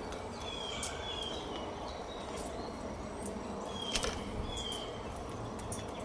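Short high bird chirps, two pairs of them about three seconds apart, over a steady outdoor background hiss. Now and then a sharp click or tap from common grackles pecking at seed on a feeder tray.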